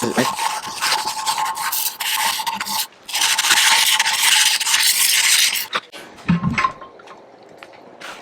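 Wooden knife handle being sanded: a loud rasping rub in two long stretches with a short break about three seconds in, stopping just before six seconds. A few light clicks and a low knock follow.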